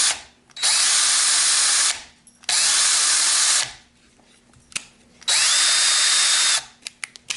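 Craftsman V20 cordless drill running free, with no load, in its high-speed setting 2: three trigger pulls of about a second each, the motor whine rising briefly as it spins up and then holding steady, with short pauses between. A previous run ends right at the start.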